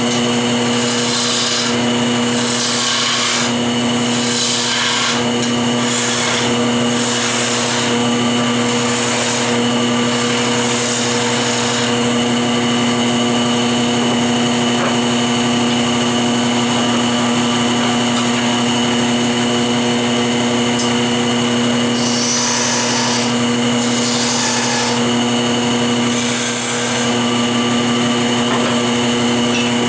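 Wood lathe running with a steady motor hum while a hand-held turning tool cuts the spinning hickory blank, the cuts coming as repeated hissing passes through the first dozen seconds and again in a second spell about two-thirds of the way through.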